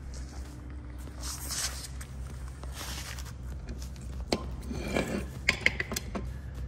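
Workshop room tone: a steady low hum, with a few soft rustles and, in the second half, several light clicks and knocks.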